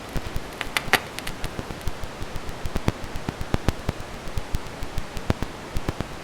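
Steady hiss with irregular sharp crackling clicks, like static or surface noise.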